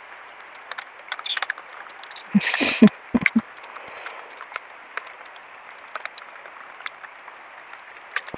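Light rain falling on lake water and a wooden canoe: a steady hiss with scattered drop ticks. A louder rush and a few low knocks come about two and a half to three seconds in.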